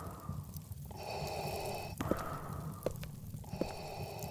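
Slow, even breathing in and out through a gas mask respirator, each breath a hissing rush, with a few faint clicks between them.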